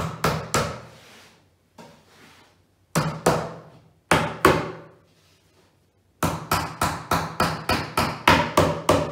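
Hammer striking the particleboard panels of a flat-pack IKEA Malm drawer, knocking its glued joints together: a few blows at a time, then a quick run of about a dozen, roughly four a second, near the end.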